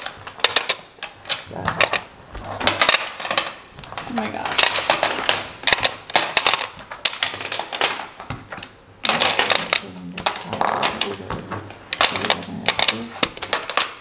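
Rummikub tiles clicking and clacking against one another and against a plastic tile rack as they are drawn and set in place: many quick, irregular clicks.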